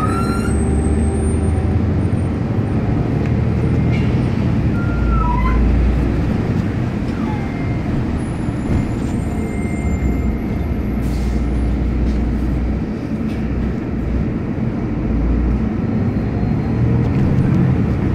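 Cabin noise of a Solaris Urbino 18 articulated city bus under way: a steady engine and road rumble, with a few faint short squeaks in the first several seconds.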